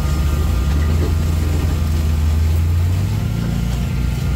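Side-by-side UTV engine running steadily under load while it crawls through brush on a steep slope, heard from the cab, with the towed Swisher rough-cut mower running along with it. The engine note shifts a little about three seconds in.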